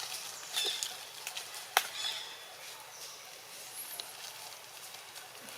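Outdoor ambience with a few short high squeaks from monkeys and scattered sharp clicks and taps. The loudest sound is a single crack just under two seconds in.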